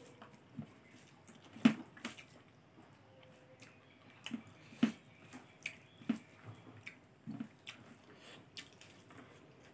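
Close-up eating sounds: wet mouth smacks and clicks of chewing rice and greens, coming irregularly, with louder smacks about two seconds in and again about five seconds in.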